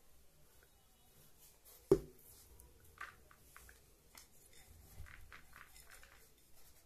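Hands scooping a dry, crumbly ground-bait mix in a bowl, with one sharp knock about two seconds in, then the mix tipped out and pouring with soft rustling into a plastic basin of meal.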